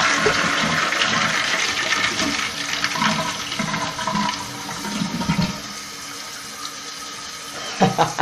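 A 1997 Toto toilet flushing: water rushing from the tank into the bowl, dying down after about five and a half seconds to a quieter, steady running of water.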